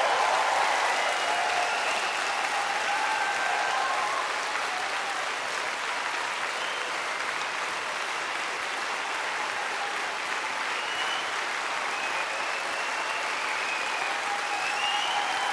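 A large audience applauding steadily, many hands clapping at once, with scattered voices cheering over the clapping.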